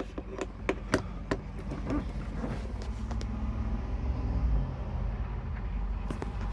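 A few sharp clicks and knocks in the first second and a half, then a steady low hum.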